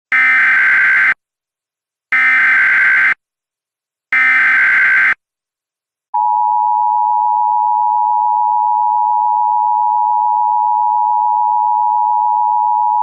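Emergency Alert System tones: three bursts of the SAME digital header, each about a second long and spaced about two seconds apart, a buzzy data screech. About six seconds in, the steady two-tone EAS attention signal begins and holds.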